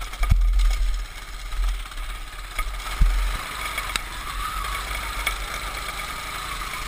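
Baja mini bike's small engine running steadily under way, with wind buffeting the microphone. Two sharp thumps, about a third of a second in and about three seconds in, come from the bike jolting over bumps.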